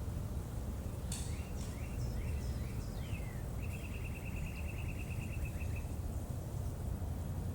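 A bird calling: a run of short falling chirps about a second in, then a rapid trill for about two seconds, over a steady low rumble.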